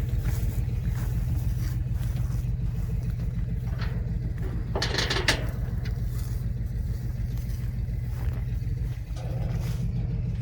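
Vehicle engine running steadily with a low, even rumble, and a brief rushing noise about halfway through.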